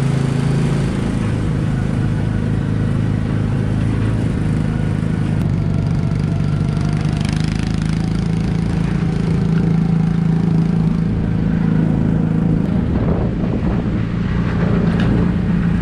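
The small gasoline engine of a Tomorrowland Speedway ride car running steadily under throttle, its note rising and falling a little as the car's speed changes.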